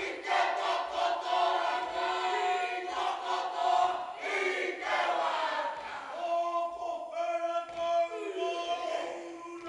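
Kapa haka group, many voices chanting and singing in unison in Māori, settling into long held sung notes in the second half.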